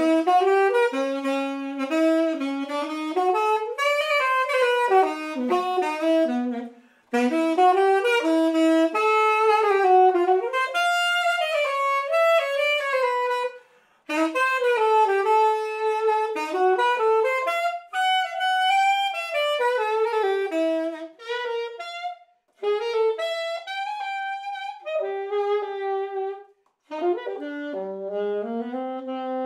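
Unaccompanied alto saxophone playing jazz phrases, a single melodic line broken by short pauses between phrases.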